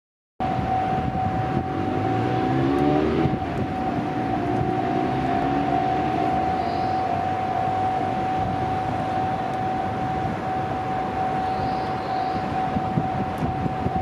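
Japanese railway level-crossing warning bell ringing steadily as the crossing is about to close. A car drives across, its engine rising in pitch, about two to six seconds in.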